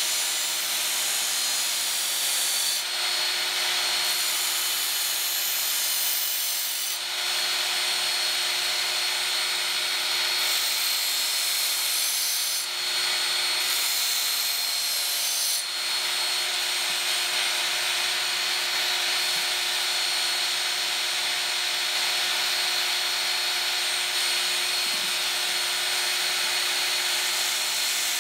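Work Sharp electric belt knife sharpener running with its coarse red abrasive belt, a steel kitchen-knife blade held against it and grinding. The grinding hiss swells and eases several times in the first half, then runs evenly over the steady motor whine. This is the rounding-off of sharp corners on the blade, away from the cutting edge.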